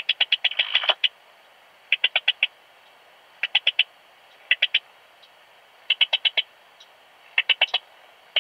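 Eastern stripe-headed cricket (Modicogryllus frontalis) male singing, heard through an ultrasound detector tuned to 20 kHz: short chirps of about four to six rapid pulses, repeated roughly every one to one and a half seconds.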